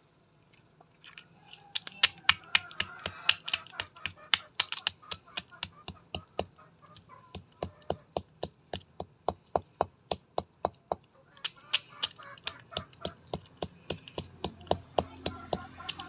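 A hen pecking at feed on hard dirt ground, heard as rapid sharp taps of its beak, about three or four a second. The taps start about two seconds in and pause briefly around eleven seconds.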